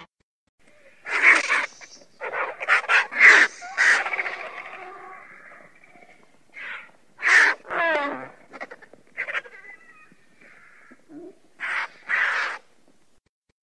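Vultures calling: a series of short, harsh calls in irregular clusters with pauses between them, one partway through sliding down in pitch, and a last pair near the end.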